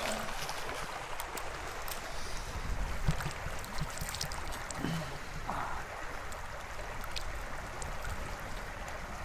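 Shallow river current running steadily over stones, with light splashing and dripping as cupped hands scoop water from it.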